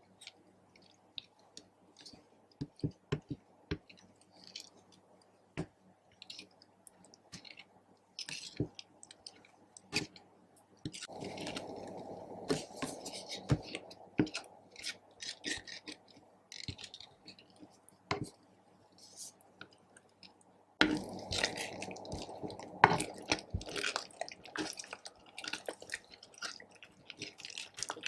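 Sticky slime being squished and worked by hand, giving irregular wet clicks and pops. There are two longer stretches of denser squelching, one a little under halfway through and one near the end.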